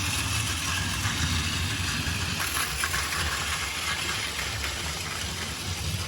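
Battery-powered Plarail toy freight train running on its plastic track: a steady small-motor whir and gear hum with faint clicks from the wheels on the track.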